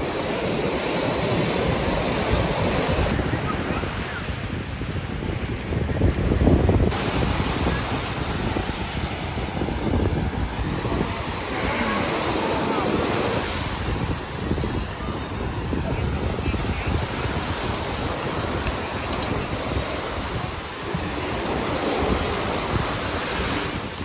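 Surf breaking and washing up on a sandy beach, with gusts of wind buffeting the microphone, strongest about six seconds in.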